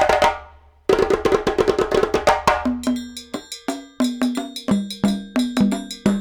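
Background music: a rhythmic, percussive track of quick wood-block-like hits with pitched notes, dropping out briefly just before a second in and then carrying on.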